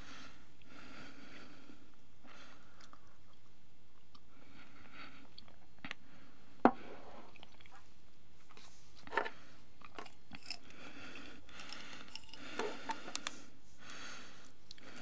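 A person chewing and crunching something close to the microphone. One sharp crunch about six and a half seconds in is the loudest sound, with another near nine seconds and a quick run of small clicks around thirteen seconds.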